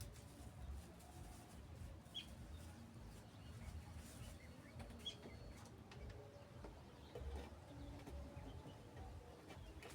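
Faint bird chirps, two short high ones about two and five seconds in, over a low background rumble with a few light clicks.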